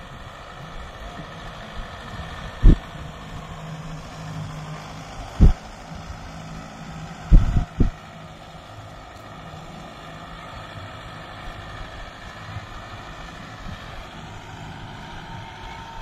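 Kubota 4WD tractor's diesel engine running steadily, pulling a cultivator, under a haze of wind noise. Four loud low thumps break in, at about 3, 5 and 7 seconds, the last two close together.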